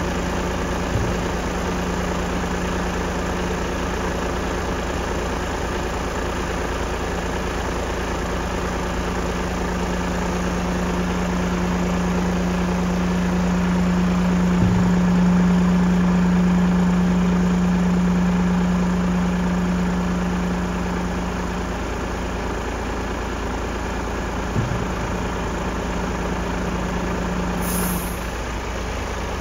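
Mercedes-Benz Arocs 1843 tractor unit's straight-six diesel running steadily while its tipping hydraulics push the trailer's tipper cylinder out, raising the body. A steady hum swells in the middle and stops shortly before the end, with a few faint knocks along the way.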